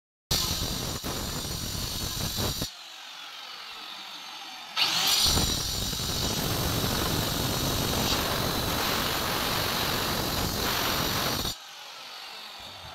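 Handheld marble cutter with a diamond blade cutting through a black stone slab. It runs loud for about two and a half seconds, drops quieter for about two seconds, then cuts loud again for about seven seconds. It falls back to a quieter run near the end.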